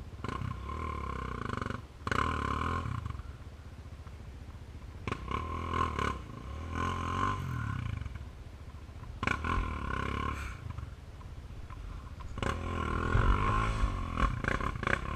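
Sport quad ATV engine with an aftermarket Big Gun exhaust, revved in repeated bursts of throttle, about six times, the pitch rising and falling with each blip between lower running.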